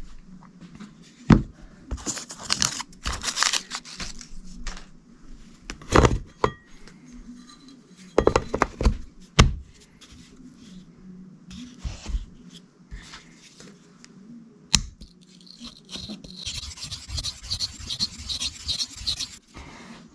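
Steel knife blade being drawn across a sharpening stone, with scattered scrapes and a few sharp knocks of handling, then a quick run of rhythmic, rasping strokes near the end.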